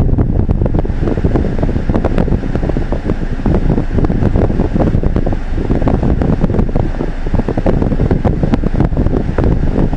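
Steady low rumble and hiss with constant crackling, picked up by a dashcam's microphone inside a car standing still in a lane: fan- and wind-like cabin noise.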